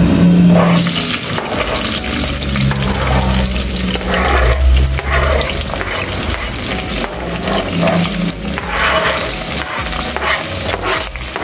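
Sliced onions, peppers and garlic pushed off a cutting board with a spoon into hot oil, sizzling from about half a second in.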